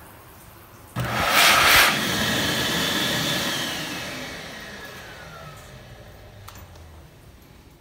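XLERATOR high-speed hand dryer switching on suddenly about a second in and blowing loudly for about a second. It then drops to a steadier blow and winds down, its motor's whine falling in pitch as it fades out.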